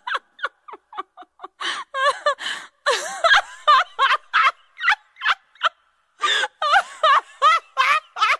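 A man laughing hard in quick, high-pitched, repeated bursts, breaking off briefly just past the middle.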